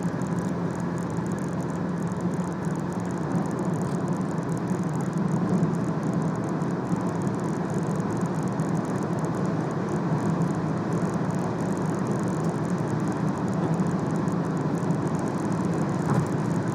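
Steady road and wind noise heard inside a car cruising at high motorway speed, around 180 km/h, with a low, even drone from the tyres and drivetrain.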